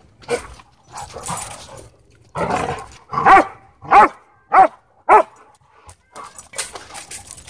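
A dog gives four sharp warning barks about two-thirds of a second apart, just after a harsh, noisy outburst, at another dog crowding it.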